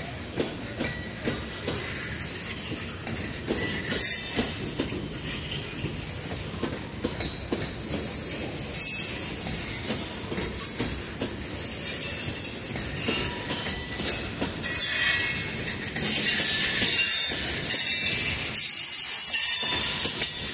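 Freight train of CSX open-top phosphate hopper cars rolling past, the steel wheels squealing against the rail, louder in the second half.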